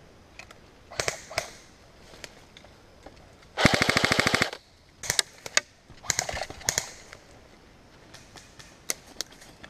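Airsoft electric rifle (Echo1 SCAR-L) firing one full-auto burst of just under a second, at roughly 18 shots a second, about three and a half seconds in. Scattered single sharp snaps come before and after it.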